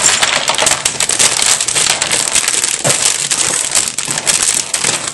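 A hand rummaging through a pile of loose plastic Lego bricks in a cardboard box, a dense, continuous clatter of small plastic pieces knocking together.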